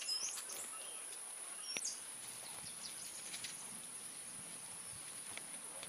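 Insects chirring in a steady high-pitched drone, with a few short bird chirps in the first two seconds.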